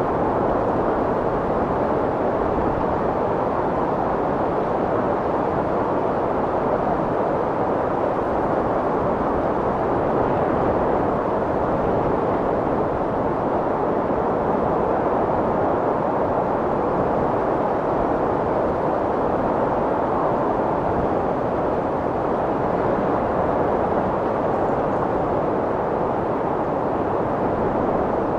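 Strong wind blowing steadily as a dense, even rush without gusts or breaks.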